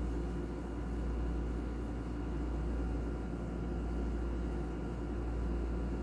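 Steady low hum with a faint even hiss and no distinct events, like a running appliance or ventilation.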